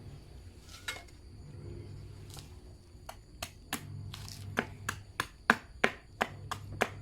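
A run of sharp knocks of a tool striking wood, starting about three seconds in and settling into roughly three strikes a second, growing louder. This is work on a wooden hoe or broom handle.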